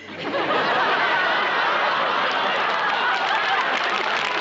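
Studio audience laughing, with clapping mixed in, swelling up within the first half second and holding steady.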